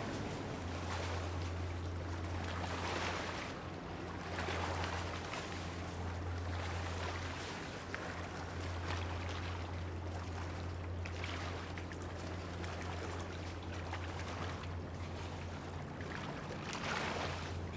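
Steady low drone of a passing ship's engine, with a rushing noise that swells and fades every second or two.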